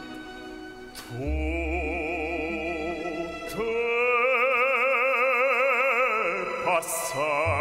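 Baritone singing a Neapolitan song in Italian, operatic style, over an orchestra with strings. The voice comes in about a second in and holds long notes with a wide, even vibrato, the loudest in the middle.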